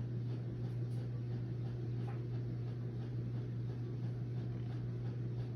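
Steady low hum with a faint hiss beneath it.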